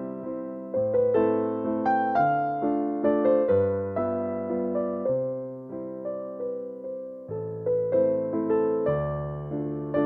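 Background piano music: a slow, gentle melody of struck notes that die away, over held bass notes.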